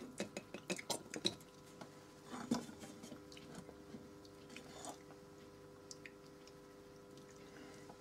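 Light clicks and taps of small objects being handled while airbrush paint is thinned with water, most of them in the first second and a half, with a short scrape about two and a half seconds in. A faint steady hum lies under it.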